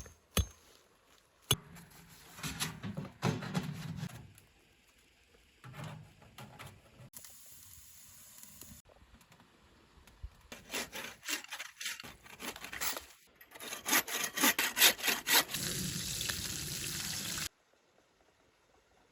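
A hand saw cutting through wood in short runs of strokes. A fast, steady run of strokes near the end is the loudest part and cuts off suddenly.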